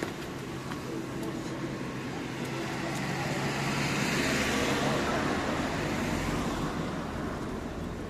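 A road vehicle passing close by. Its engine hum and tyre noise build to a peak about four to five seconds in, then fade away.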